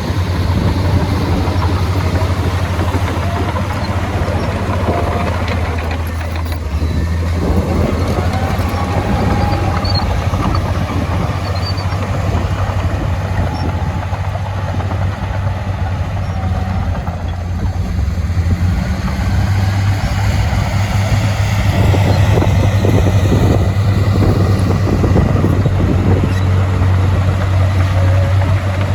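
Heavy earthmoving machinery's diesel engine running steadily, a deep drone with a fainter higher whine that rises and falls.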